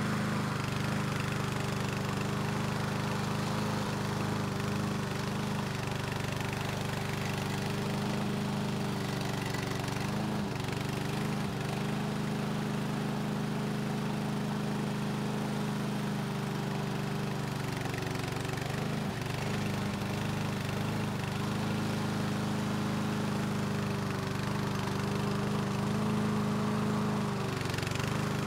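Engine of a remote-control tracked lawn mower running steadily, its pitch dipping briefly a few times.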